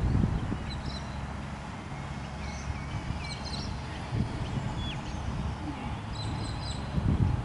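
Small birds chirping in short, high calls over a low rumble of wind on the microphone.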